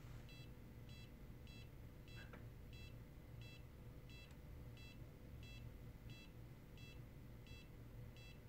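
Faint electronic beeping: a short, high beep repeated a little under twice a second, over a faint steady hum.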